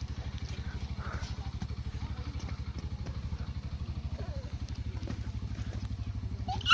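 A small engine running steadily with an even, rapid low throb, and a short high squeal at the very end.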